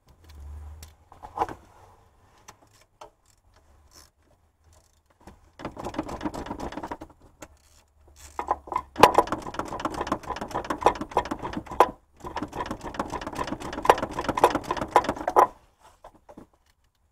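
Ratchet clicking rapidly as the serpentine belt tensioner bolt is run in and tightened, in three spells of quick clicks: one short run about six seconds in, then two longer runs from about nine seconds, with short pauses between.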